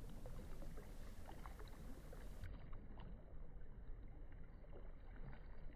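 Faint sea water lapping and splashing softly against shoreline rocks.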